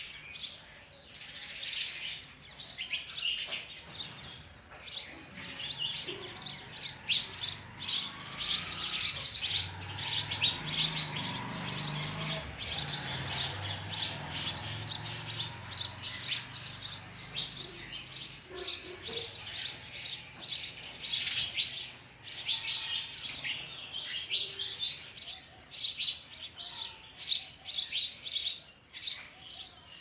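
Sparrows chirping at the nest: a dense, fast run of high chirps, likely nestlings begging while the parent feeds them. A low rustling rumble runs underneath from about 8 to 18 seconds in.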